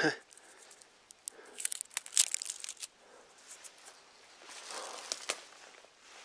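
Dry aspen leaves crinkling and rustling when handled, in two short bouts of crackling.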